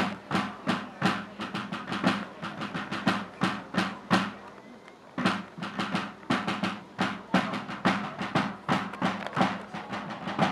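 Field drum beaten in a quick pattern of single strokes and short rolls, with a pause of about a second around four seconds in. It is the drum cadence that accompanies guild flag waving.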